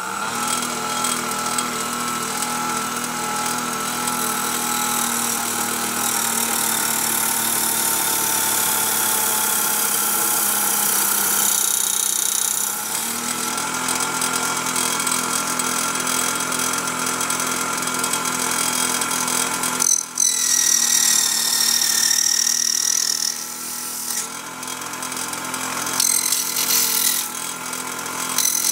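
Fleischmann toy tin table saw, belt-driven by an electric drill, running at speed with a steady motor whine. The note shifts a few times as the small circular blade cuts wood, and there is a brief dip about 20 seconds in.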